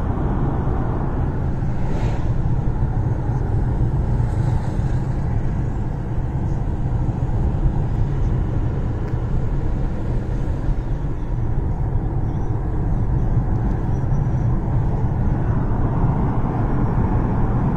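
Steady low rumble of a car's engine and tyres heard from inside the cabin while driving along a city street.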